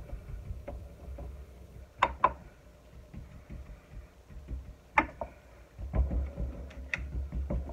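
Silicone spatula spreading and pressing a buttered crumb crust in a glass baking dish, with a few sharp taps and clicks against the glass: one about two seconds in, another just after, and a louder one about five seconds in. Near the end there is a low, soft rumble as the crust is patted down by hand.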